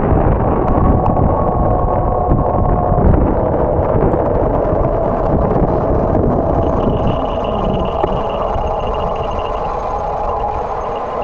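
Wind buffeting the microphone and road rumble from a bicycle riding along a city street, with car traffic around it. A thin steady whine joins in past the middle for about three seconds.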